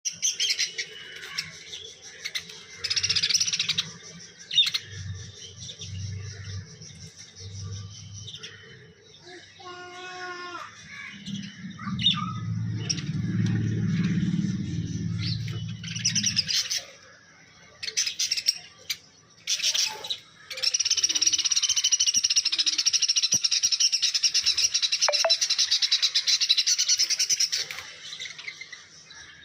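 Parrot calling: scattered sharp chirps and squawks, then a long run of continuous harsh, high screeching in the last third. A low rumble runs for a few seconds in the middle.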